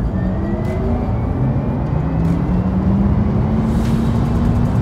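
Porsche Taycan Turbo S accelerating hard, heard from inside the cabin: the electric motors' whine blended with the car's artificial sound, built from the motor's own sound and modified, rising in pitch as speed climbs. Tyre and road rumble runs underneath.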